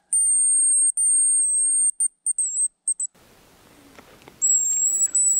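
Hazel grouse decoy whistle blown in a cock's song: two long, thin, very high whistles, then a short wavering flourish and a few quick pips. After a pause of about a second, a second, slightly lower whistle starts near the end in short broken notes.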